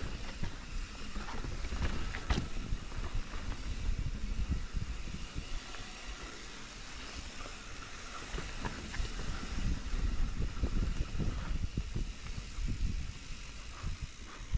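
Mountain bike descending a rough trail: the tyres run over dirt and rocks, with irregular knocks and rattles from the bike over bumps. Wind rumbles on the microphone.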